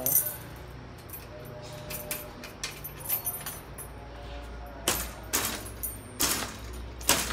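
Keys jangling and metal clicking as a padlock on a folding steel lattice gate is handled, with four loud, sharp metal clacks in the last two and a half seconds.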